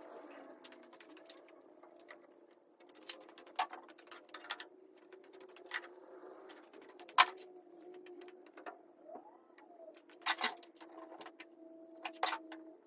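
Scattered sharp taps and knocks of pine boards and hand tools being picked up and set down on a shop bench, over a faint steady hum.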